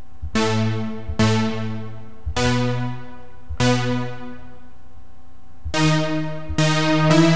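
Sylenth1 'Big Fifth' big-room lead synth preset sounding single bright notes as they are previewed one at a time, seven notes of about a second each. The last three are pitched higher than the first four.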